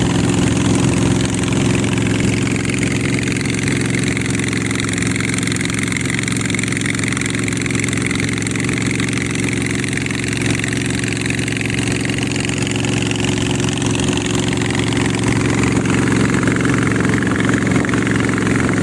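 Riverboat engine running steadily at one even pitch, with a steady hiss over it.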